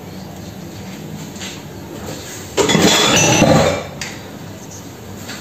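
A short clatter of kitchenware lasting about a second, starting a little past the middle, over a low steady background.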